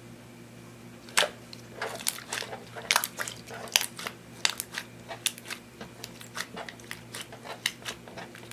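Clear slime mixed with eyeshadow being squeezed and folded by hand, making irregular sticky pops and clicks from about a second in.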